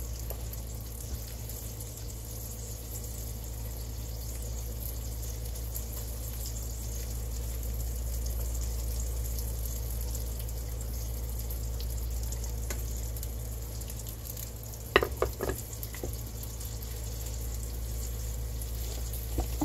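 Steady hiss of stovetop cooking: pretzel bites boiling in a baking soda bath, with bacon frying alongside. About 15 seconds in, a few sharp clinks and knocks of kitchen utensils.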